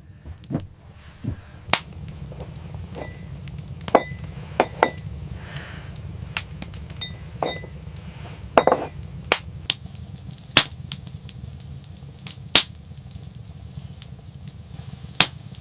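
Irregular sharp knocks and light clinks, a dozen or so single strikes spread unevenly, some with a brief ring, over a steady low hum.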